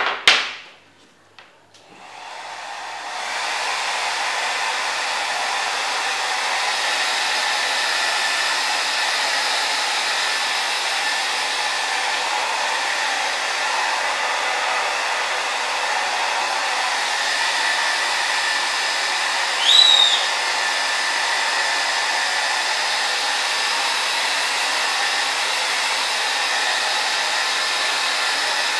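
Handheld electric hair dryer switched on, building within a couple of seconds to a steady blowing rush that runs on evenly. A sharp knock comes right at the start, and a brief high squeak about twenty seconds in.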